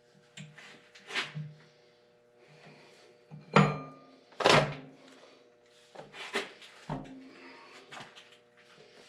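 A series of hard knocks and clunks as parts and tools are handled on a workbench, the two loudest about three and a half and four and a half seconds in, over a faint steady hum.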